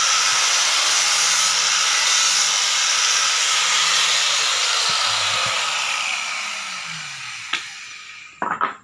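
Angle grinder running at full speed, then switched off about halfway through, winding down with a falling whine until it fades out. Two short, sharp knocks come near the end.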